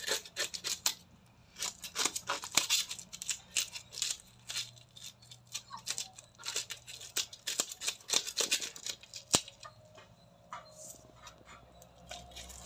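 Knife blade scraping the scales off a murrel (snakehead) fish: an irregular run of short, rasping strokes that pauses briefly about a second in and thins out near the end.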